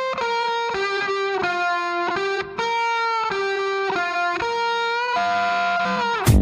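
Background music: a slow melody of long, held single notes.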